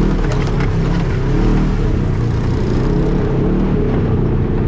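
Off-road vehicle engine running under changing throttle, its pitch rising and falling as it works along the trail, with a few light knocks and rattles.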